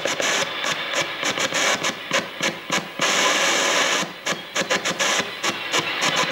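Shortwave static from a Tecsun PL-880 tuned to 5882 kHz, chopped on and off in quick, uneven beats by the keyed carrier of the M12 Morse (CW) numbers station. There is a brief unbroken stretch of hiss about three seconds in. It comes through as pulsing static rather than clean Morse tones, which doesn't sound right and points to the receiver's settings.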